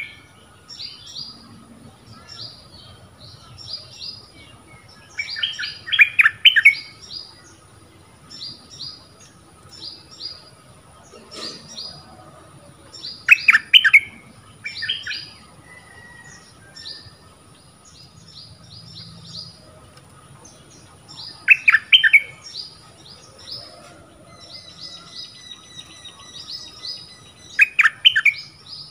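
A caged decoy bulbul calling: a loud burst of rapid notes about every seven to eight seconds, with softer high chirps in between.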